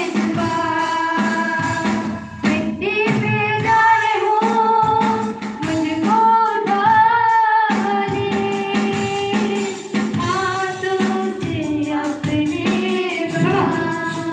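Live worship song: singing, with female voices, over a steady percussion beat, amplified through loudspeakers.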